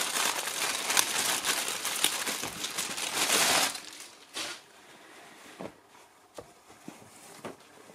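Clear plastic polybag crinkling loudly as hands open it and pull out a folded T-shirt. The crinkling stops a little over halfway through, leaving only faint rustling of the shirt's fabric being handled.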